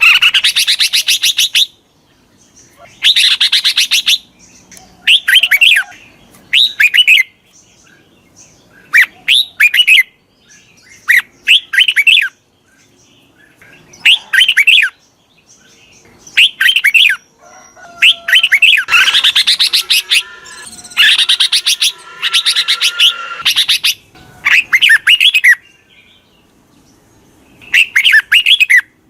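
Red-whiskered bulbul giving repeated bursts of fast, scratchy chattering calls, a second or two apart, with a longer nearly unbroken run past the middle. It is a decoy bulbul's call, used to draw wild bulbuls in.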